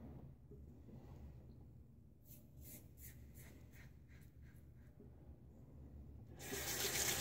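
Parker 98R double-edge safety razor scraping through beard stubble in a run of short strokes on a cross-grain pass, faint and scratchy. Near the end a sink tap is turned on and water runs.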